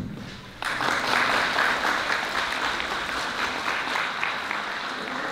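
Audience applauding: the clapping starts suddenly about half a second in and slowly dies away near the end.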